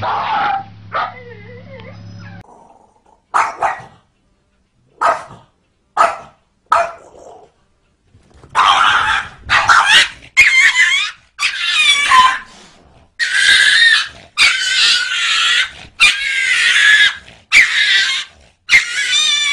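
Dogs and cats fighting: a few short, scattered cries in the first half, then from about halfway a run of loud dog barks with a wavering pitch, about one a second.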